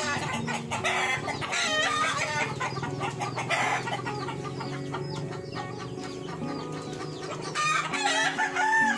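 Domestic chickens clucking around a coop, with a rooster crowing near the end.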